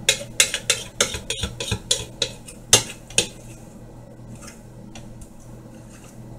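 Metal kitchen utensil clinking against dishes while working cake batter: a quick run of about ten sharp clinks over the first three seconds, the loudest near the end of the run, then a few fainter ones.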